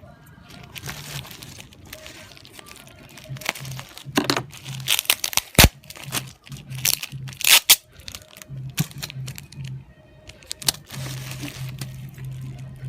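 Plastic packaging crinkling and tearing in irregular bursts, loudest in the middle stretch, over background music.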